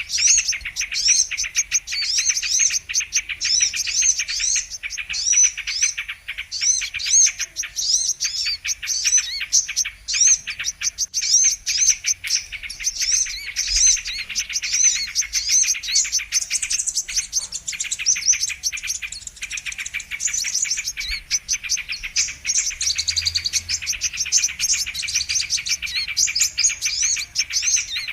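Brown-throated sunbirds (kolibri kelapa) calling in a dense, unbroken chorus of rapid, high, sweeping chirps and twitters. This is the kind of recording played as a lure to trap the species.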